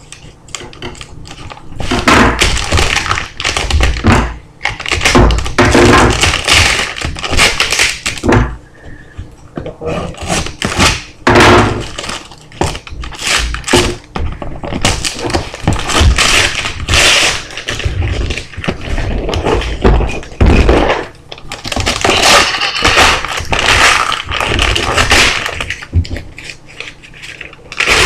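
Package and its contents being handled and unwrapped at close range: stretches of rustling and crinkling packaging broken by thumps and taps as items are set down.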